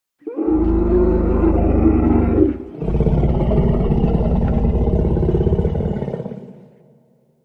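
Dinosaur roar sound effect: two deep roars. The first lasts about two seconds, and the second is longer and fades away near the end.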